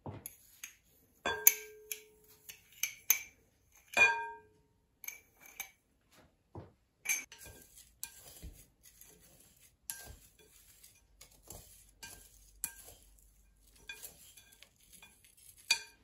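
Utensils tapping and scraping against a glass mixing bowl while redcurrants on their stems are stirred. A few sharp clinks ring briefly, the loudest about a second and a half and four seconds in. From about seven seconds in there is steady rustling and small clicks of berries and stems being turned over.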